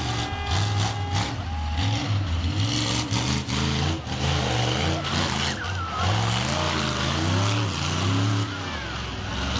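Monster truck's V8 engine with open headers revving hard in repeated surges, the pitch climbing and dropping over and over as the truck is driven through a wheelie.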